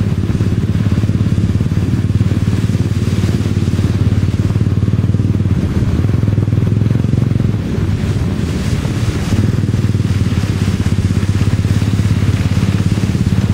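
Motorbike engine running steadily while riding through shallow floodwater, a loud, constant low hum with a rushing noise over it.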